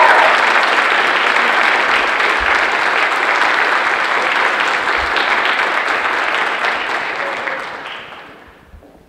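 Audience applauding, a dense steady clapping that dies away about eight seconds in.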